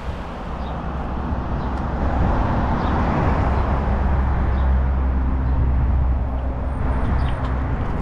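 Road traffic: a motor vehicle's engine going by on the street, a low rumble that swells about halfway through and eases off near the end.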